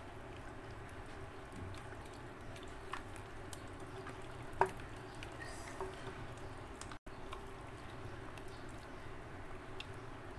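Wet squelching of hands rubbing thick yogurt masala marinade over a whole chicken and potato pieces, with scattered soft wet clicks, one sharper about four and a half seconds in, over a steady low hum.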